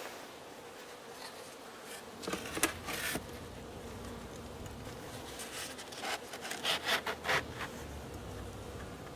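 Honeybees buzzing around an open winter hive, a faint steady hum. It is broken twice by short bursts of rubbing and scraping, about two seconds in and again around six to seven seconds in.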